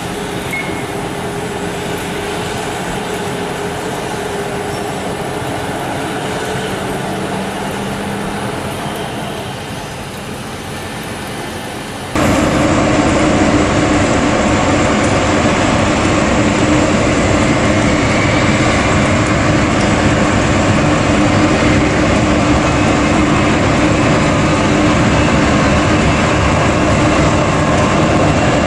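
Jet engines of a Boeing 737 taxiing on a wet apron, a steady hum with a held tone. After a sudden cut about 12 s in, a much louder, steady jet roar from an Airbus A320 on its landing roll down a wet runway, throwing spray.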